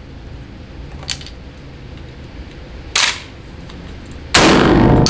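A single shot from a MAC M2 12-gauge inertia-driven semi-automatic shotgun firing a light 1-ounce low-brass load, near the end, ringing in the concrete shooting bay. A short sharp clack comes about three seconds in, before the shot.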